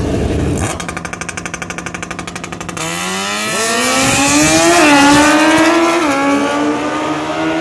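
A drag snowmobile and a sport motorcycle at the start: an engine held at a fast, even stutter, then both launching about three seconds in and accelerating hard. The rising engine pitch drops twice, near five and six seconds, as gears shift, and is loudest around the first shift.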